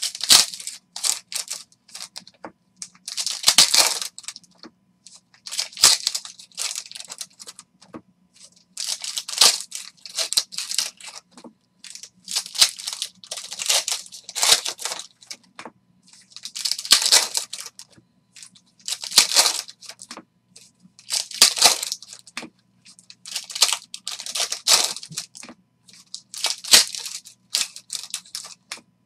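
Foil hockey card packs being torn open and crinkled one after another by hand, a loud crackly rip every two to three seconds with smaller crinkles in between.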